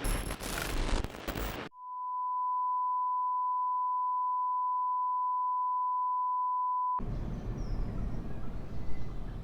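A steady, pure electronic beep tone held for about five seconds, starting about two seconds in and cutting off abruptly. Before it, a short stretch of crackly noise with sharp clicks; after it, low background noise.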